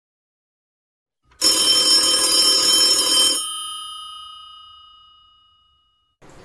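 Old-style telephone bell ringing once for about two seconds, starting about a second and a half in, its tones then ringing on and fading away: an incoming call.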